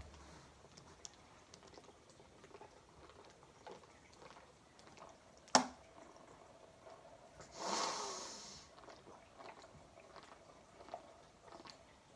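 Faint gulping and swallowing as a 12-ounce bottle of Gatorade is chugged, with a sharp click about five and a half seconds in and a short rushing burst around eight seconds in.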